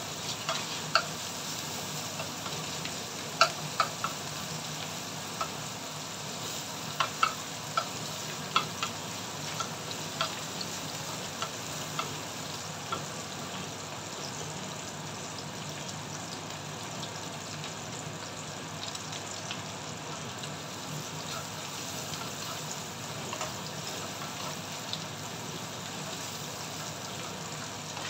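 Diced bacon and minced garlic sizzling in oil in a wok, stirred with a slotted spatula that clicks and scrapes against the pan. The clicks come often in the first half, then the steady sizzle runs on mostly alone.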